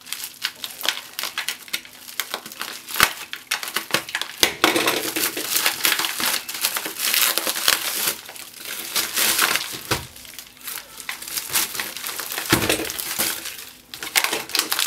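Bubble-wrap packaging crinkling and crackling as it is cut open and pulled apart by hand: a dense, continuous run of sharp crackles.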